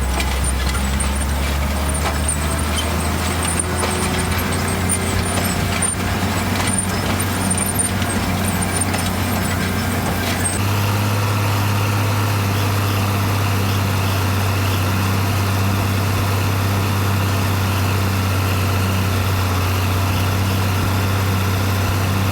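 International tractor engine running steadily while pulling a tillage implement through a field. About ten seconds in, the drone changes abruptly to a slightly higher, steadier pitch.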